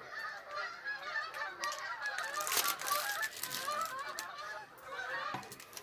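Birds calling: a steady run of short, warbling calls that overlap one another, with a few brief rustles around the middle.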